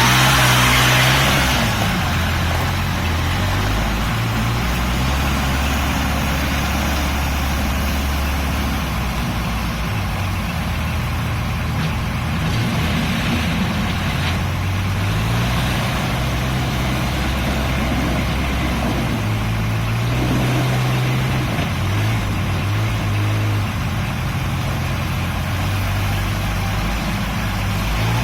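Diesel engine of a Case N-series backhoe loader running steadily, its speed rising and falling several times as the machine works.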